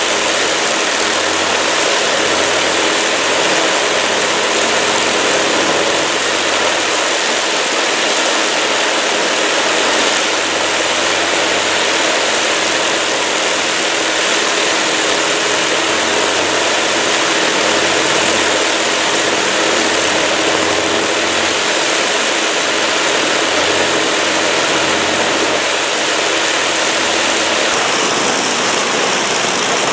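Avro Lancaster bomber's Merlin V12 piston engines running steadily on the ground, a loud constant drone with a slight change in character near the end.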